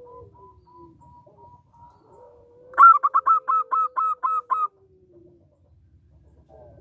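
Zebra dove (perkutut) calling: a quick run of about nine short, falling cooing notes, roughly five a second, lasting about two seconds from about three seconds in.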